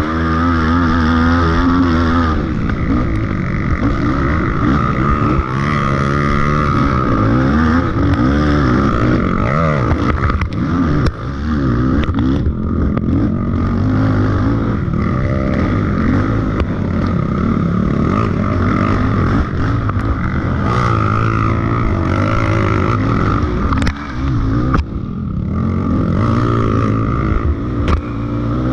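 Racing ATV engine under hard throttle on a rough trail. Its pitch climbs and falls as the rider works the throttle and gears, with two brief let-offs, one around the middle and one later on.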